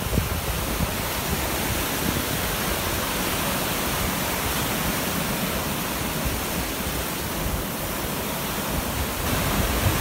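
Surf from a rough sea breaking and washing up a sandy beach: a steady rushing hiss of foam and water.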